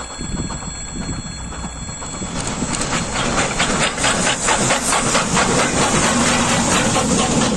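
Soviet L-class steam locomotive working a passenger train past at close range, with rhythmic exhaust chuffs and hissing steam that grow louder from about two seconds in.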